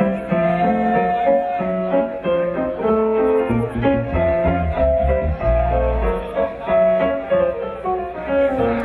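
Live band playing: keyboard, electric bass, drums, guitar and a horn section of baritone saxophone, trumpet and trombone, with long held notes over a moving bass line.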